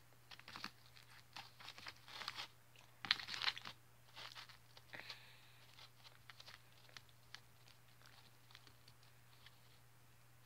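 Faint crackling and sticky crunching as hands squeeze and pull apart a melted, crunchy snack on a paper plate, loudest about three seconds in, then thinning to scattered ticks.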